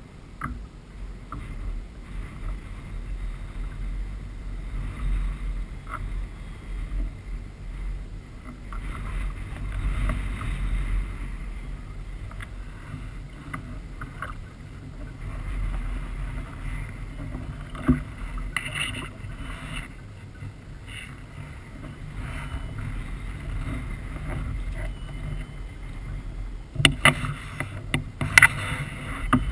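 Water sloshing against a kayak's hull with a fluctuating low wind rumble on the microphone. A cluster of sharp knocks comes near the end.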